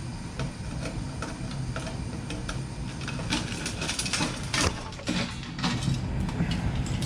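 Clicking and rattling of tools and metal parts as a computer is taken apart for scrap. Regular sharp clicks come about three a second, then a quicker flurry of clicks and rattles about three seconds in, over a low steady hum.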